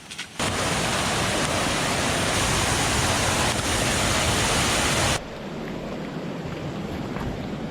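Loud, steady rush of water that starts suddenly about half a second in and cuts off about five seconds in, giving way to a quieter, duller rush of water.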